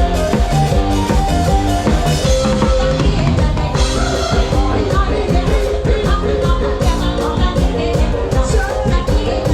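Live band playing a rock-style song, with a drum kit keeping a steady beat and a voice singing.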